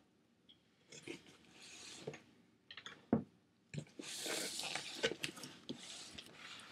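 A cardboard shipping box being opened and handled: a few knocks and clicks, then a longer stretch of rustling and crinkling from about four seconds in.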